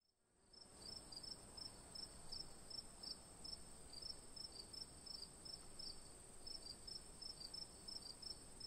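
Faint insect chorus of crickets: a steady high trill with short chirps repeating a few times a second, starting about half a second in.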